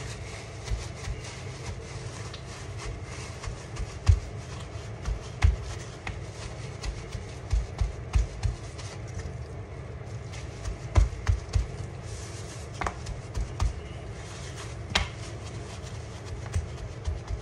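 Paper towel pressed and rubbed over raw pork chops on a bamboo cutting board to pat them dry: irregular soft thumps with faint rubbing in between.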